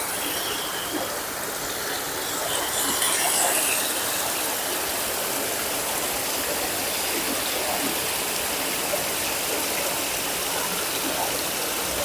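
Water running and splashing in a swimming pool's water feature: a steady rushing that swells briefly about three seconds in.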